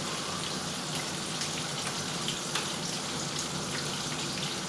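Pakoras deep-frying in hot oil: a steady sizzle with small scattered crackles.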